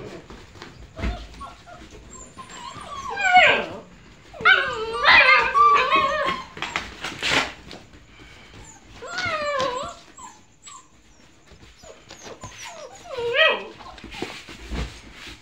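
Young Dogo Argentino puppies whining in about four bouts, each cry sliding down in pitch. There are a couple of low thumps between the cries.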